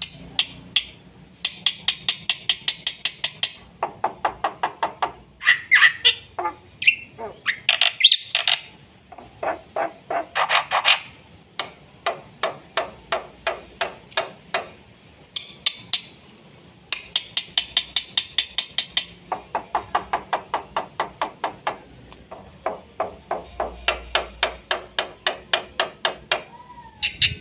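Black-winged myna (jalak putih) singing a fast, full song: phrases of rapid repeated notes at roughly eight to ten a second, switching between lower chattering runs and very high, shrill runs, with a few short whistles in between.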